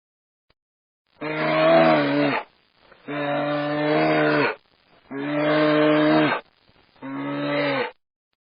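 Cow mooing four times in a row. Each call is a long, steady low note of about a second and a half, with short gaps between them, and the last call is the shortest.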